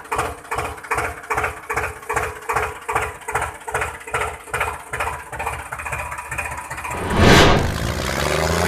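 Tractor engine running in a slow, steady chug of about three beats a second, dubbed over the toy tractor. About seven seconds in it gives way to a louder surge.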